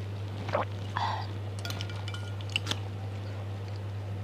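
Spoon and fork clinking lightly against a glass bowl of noodle soup a few times while eating, over a steady low hum.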